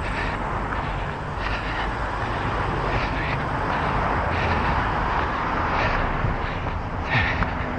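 Road traffic passing on a city street: steady tyre and engine noise that swells around the middle. Over it come short regular puffs about every second and a half, a runner breathing hard on an uphill climb.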